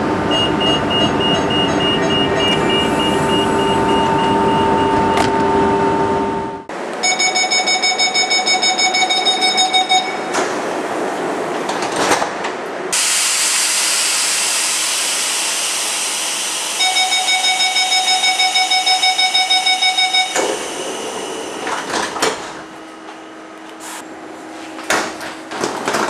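Train door-closing warning beeper sounding in rapid, evenly spaced beeps, about four a second for about three seconds, twice, with a loud hiss between the two runs. Before it, the train runs with a steady whine. After the second run of beeps, the doors knock shut.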